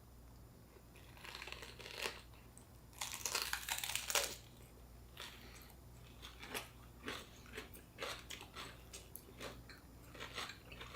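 Close-up biting and chewing of a spring roll with raw lettuce, cucumber and bean sprouts. A louder run of crunching comes from about one to four seconds in, then softer, separate chewing crunches.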